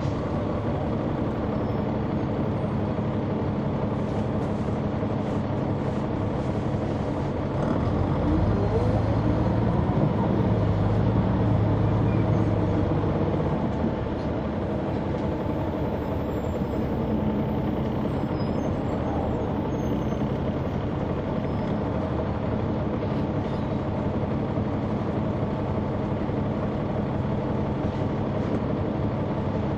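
Caterpillar C-9 ACERT diesel engine of a 2004 Neoplan AN459 articulated bus running, heard from inside the bus. About eight seconds in it grows louder with a rising whine for some five seconds, then settles back to a steady drone.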